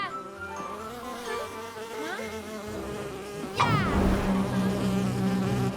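Cartoon buzzing like a flying insect. About three and a half seconds in comes a sudden falling swoop, followed by a louder, lower buzz.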